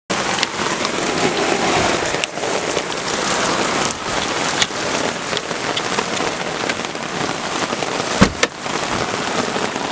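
Steady rain falling on hard surfaces, with scattered drip clicks and one louder knock about eight seconds in.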